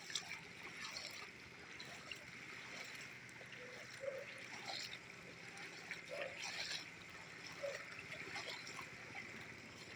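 Floodwater sloshing and splashing as a person wades through it, with a splash every second or two over a steady wash of moving water.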